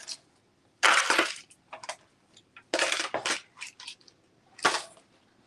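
Costume jewelry being handled: bead and metal pieces clinking and rustling in three short bursts, about a second in, around three seconds in and near the end, with small clicks between.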